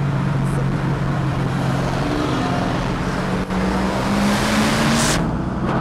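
Engines and exhausts of modified performance cars, among them a Mercedes E55 AMG alongside, heard from inside a car in a road tunnel. A steady engine drone gives way to rising engine pitch as they accelerate from about two seconds in, with a loud rushing surge that cuts off sharply about five seconds in.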